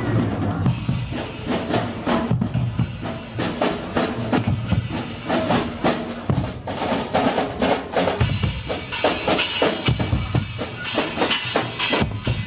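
Carnival Guggenmusik percussion section playing: bass drums, snare drums and cymbals on wheeled drum kits beating a steady, driving rhythm.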